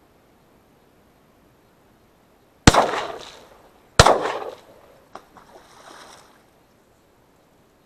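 Two shotgun shots a little over a second apart, each trailing off in an echo, followed by a few faint knocks.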